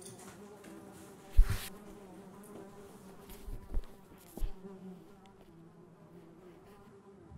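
Steady insect buzzing, with a few dull thuds of a heavy book being handled; the loudest thud, with a short papery rustle, comes about one and a half seconds in.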